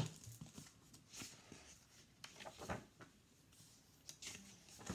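A picture book being handled and opened: a sharp tap at the start, then faint rustles and soft knocks as the book is turned and its pages are moved.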